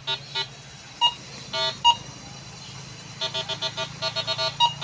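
Metal detector beeping as its search coil is held over the ground: a few separate beeps, then about three seconds in a quick even run of beeps, over a low steady hum.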